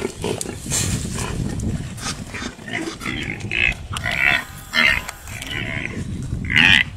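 Short, repeated animal cries and grunts as a lioness attacks a young wildebeest, coming thick from about three seconds in with the loudest cry near the end.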